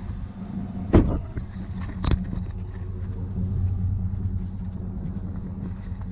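Pickup truck engine running at low speed, a steady low hum, with two sharp knocks about a second apart near the start.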